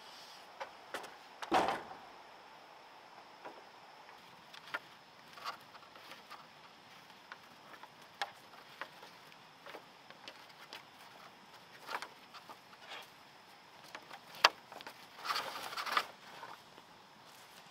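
Green bamboo poles being handled and tied into a bundle: scattered hollow knocks and clicks of bamboo against bamboo, with rustling of cord and grass. There is a heavier thump about a second and a half in.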